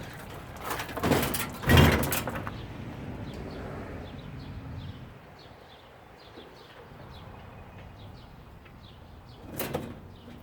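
Parts of a washing machine being pulled and handled: a loud scraping rattle about a second in, quieter handling after it, and a short knock near the end.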